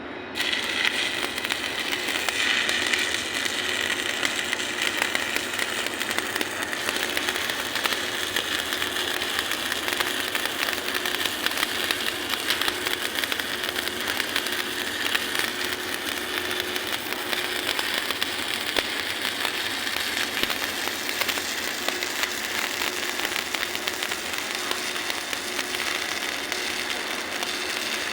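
Electric arc welding on a steel hopper: the arc crackles and sizzles steadily, with a faint steady hum underneath.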